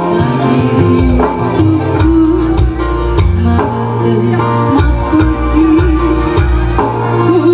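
Amplified band music: a song with a steady beat and a bass line under a wavering melody, with little or no singing.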